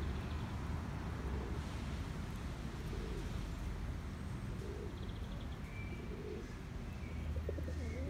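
Pigeons cooing in soft low calls repeated every second or so, with a few short high bird chirps and a steady low background rumble.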